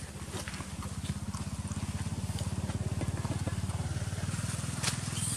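Small motorcycle engine running nearby with a low, rapid putter that grows louder over the first couple of seconds and then holds steady. A few light clicks sound over it.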